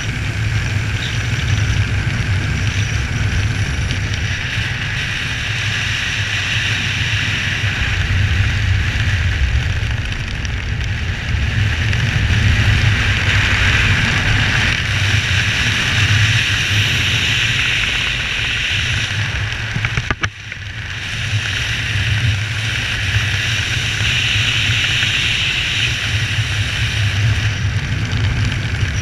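Steady wind rushing over the microphone of a camera worn by a skydiver flying under an open parachute canopy, a low buffeting rumble under a constant hiss, with a brief drop about twenty seconds in.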